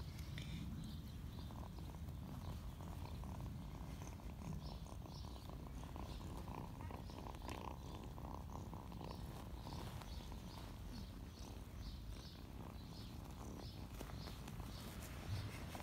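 Young ginger-and-white kitten purring steadily while being rubbed.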